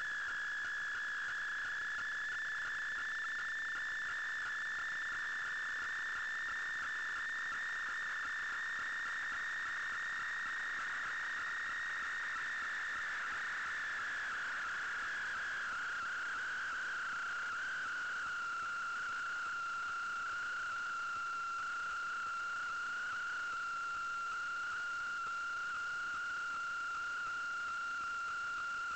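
Steady high-pitched electronic whine with a light hiss under it, sinking slowly a little in pitch about halfway through and then holding level.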